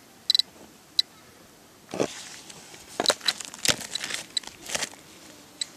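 Terra-P radiation dosimeter giving short, high chirping clicks, one for each particle detected: a few near the start and a couple near the end, sparse at a weak reading of about 1 µSv/h. Between about two and five seconds in, loose stones crunch and clatter as they are handled.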